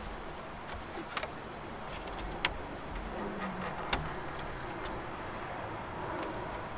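Plastic grille trim clips and tools clicking and snapping as the grille of a Ford F-250 is pried off. There are three sharp clicks, about a second apart, over a steady background hum.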